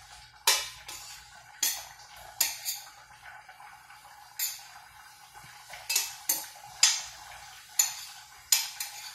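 Metal spoon clinking against a metal frying pan while food is stirred, about a dozen sharp, irregular clinks with a short ring, over a steady faint hum.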